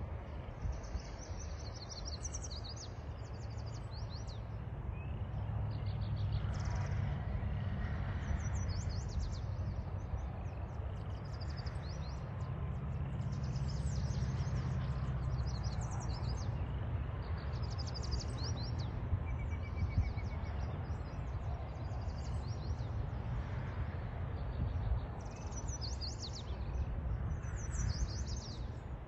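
Small birds chirping in quick high-pitched trills, over and over, above a steady low rumble of outdoor noise.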